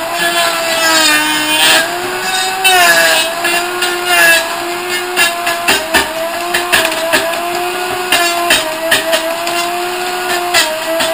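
Dr. Tech CS-020 commercial blender's motor running at speed, its whine wavering in pitch under load as the blades chop up a stick of wood. Wood pieces knock and rattle against the blades and jar, and the knocks come thick and fast in the second half.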